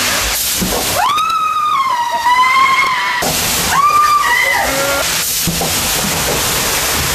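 Water rushing through an enclosed water slide tube as riders slide down, with a person screaming twice over it: one long high scream about a second in and a shorter one around four seconds in.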